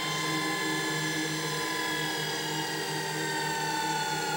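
Opened VCR fast-forwarding a sticky VHS tape: a steady motor-and-reel whine whose pitch slowly falls as the tape winds. The tape is being wiped with furniture polish on a paper pad as it runs, and it now winds freely instead of dragging.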